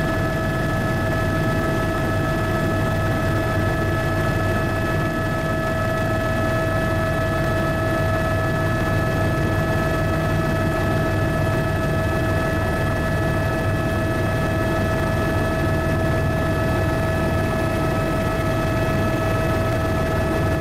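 Helicopter in flight: a steady engine and rotor drone with a high whine held at one pitch throughout.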